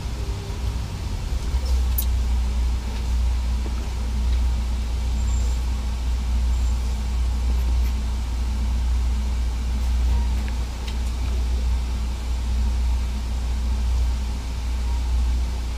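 Semi truck's diesel engine and tyres droning steadily, heard inside the cab while driving, with a strong low rumble.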